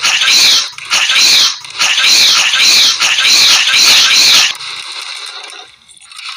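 A string of loud, animal-like cries, each lasting under a second, that stop about four and a half seconds in, followed by a quieter fading sound.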